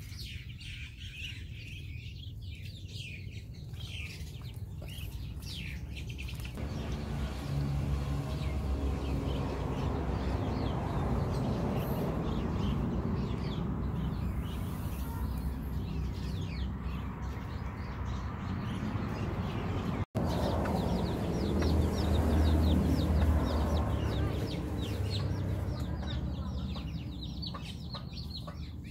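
A flock of Muscovy ducklings peeping, with many short high peeps overlapping, busiest in the second half, over a steady low rumble.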